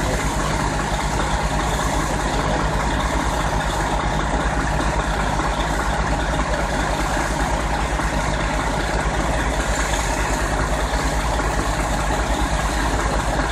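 A fire engine's diesel engine running steadily with an even low throb, driving its pump to supply the hose lines.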